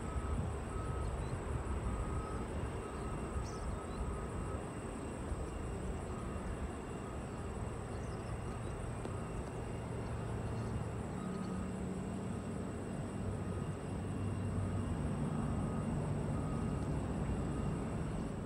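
Distant jet airliner on its takeoff run and climb-out: a steady low engine rumble, with a droning hum growing slightly louder in the second half.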